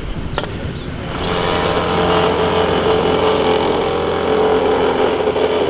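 Petrol-engined vibratory plate compactor running as it tamps a fresh asphalt pothole patch: a steady mechanical drone that comes in about a second in. A single short knock sounds just before it.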